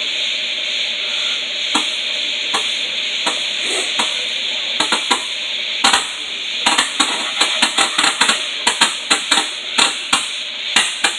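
Fireworks crackling: a steady hiss, with a quick irregular run of sharp crackles and pops from about five seconds in.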